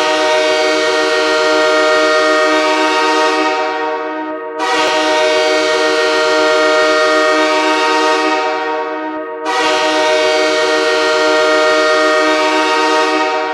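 Goal horn sounding three long, loud blasts of about four and a half seconds each, a held chord of several tones with short breaks between blasts.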